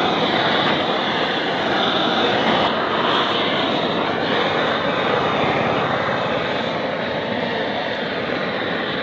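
Gas blowtorch flame hissing steadily as it singes the skin of a plucked chicken.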